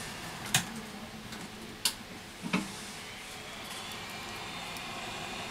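A few sharp clicks as phone parts are handled, then a hot-air gun starts blowing with a steady hiss from about four seconds in.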